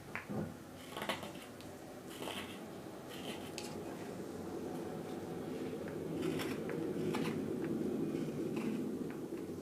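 A carving knife taking short paring cuts in the bowl of a wild cherry spoon, a crisp stroke every second or so. A steady low hum comes up a few seconds in and grows louder under the cuts.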